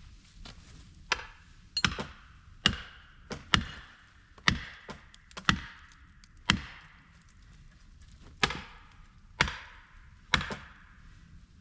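A tool striking wood about a dozen times, roughly once a second in uneven rhythm, each blow sharp with a short ringing tail, pausing briefly near the middle.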